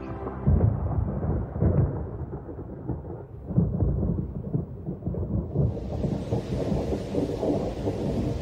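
Thunder rumbling through a storm, with louder peals about half a second in and again about three and a half seconds in. From about six seconds the hiss of heavy rain joins the rumble.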